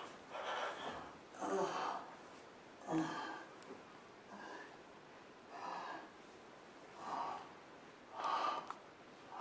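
A person breathing heavily in rhythm: about seven loud gasping breaths, roughly one every second and a quarter, a couple of them starting with a low grunt.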